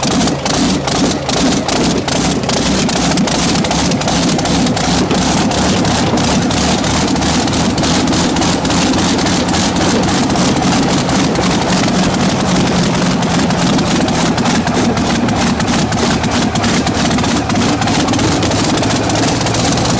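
Rolls-Royce Griffon Mk58 60° V12 aero engine running on a test stand, its exhaust coming straight out of open exhaust ports: a loud, steady, fast firing beat with a hissing top end.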